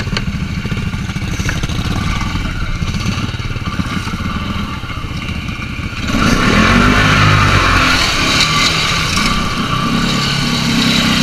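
Can-Am Outlander 450's fuel-injected single-cylinder engine running at low revs while the ATV floats in deep water. About six seconds in it revs up hard, with the churn and splash of water thrown by the tyres as the quad drives out.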